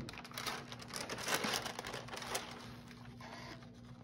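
Paper pattern overlay and fabric rustling and crinkling as they are handled on the pressing mat, busiest in the first two and a half seconds and loudest about a second and a half in, then dying down to a few small crackles.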